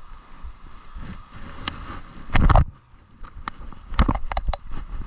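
Wind rumbling on the microphone and water sloshing against a small boat. There is one loud splash-like burst about halfway through and a quick run of knocks near the end.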